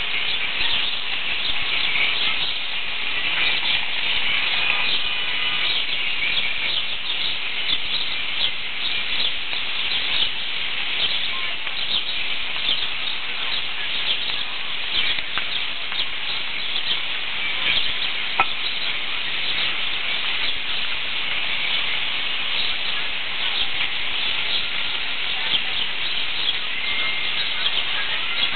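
Steady outdoor ambience of many small birds chirping continuously in the trees, over an even high hiss.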